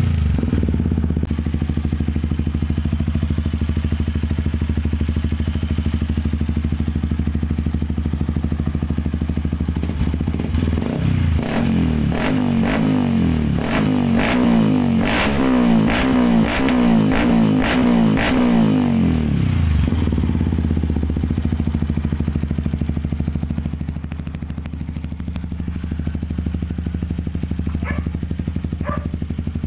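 Yamaha WR155R's 155 cc single-cylinder engine running through an aftermarket Norifumi exhaust: it idles steadily, is revved up and down several times in quick blips from a third of the way in, with sharp crackles from the pipe, then settles back to idle.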